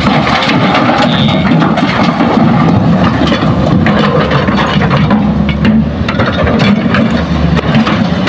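Hitachi hydraulic excavator's diesel engine running steadily under load as it loads soil into a steel dump truck bed, with scattered knocks of soil and rock landing in the bed.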